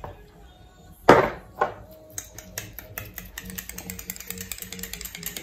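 A sharp knock about a second in, then a fast, even run of small clicks, several a second, as a bottle of pink gel polish is shaken by hand.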